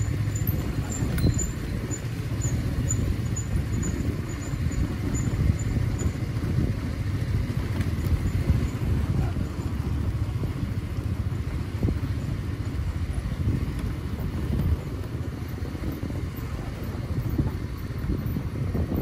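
Steady low rumble with no clear pitch, with a faint series of high chirps during the first six seconds.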